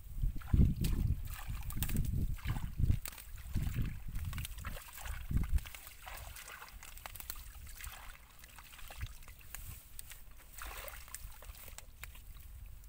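Hands sloshing and squelching through a shallow muddy pool, water trickling and splashing. Irregular gusts of wind rumble on the microphone for the first five or so seconds, then it goes quieter.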